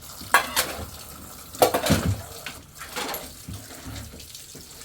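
Water running and splashing, with several sudden louder splashes or knocks.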